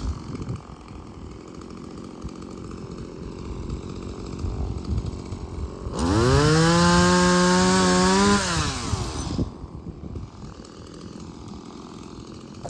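Stihl MS170 two-stroke chainsaw idling, then throttled up sharply about halfway through, held at high revs for about three seconds, and dropped back to idle.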